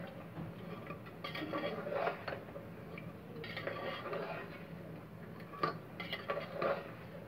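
A spatula stirring beef in a wet turmeric and yogurt masala in a pressure cooker pot, scraping and knocking against the metal sides in a few irregular strokes. The beef is being fried while its juices cook off.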